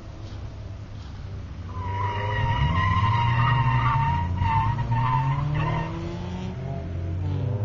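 Tires of a skid car squealing as it slides, from about two seconds in until about six seconds, the squeal wavering in pitch. The car is a sedan on an outrigger rig with caster wheels that cuts its grip. Its engine runs underneath, the pitch rising and falling with the throttle.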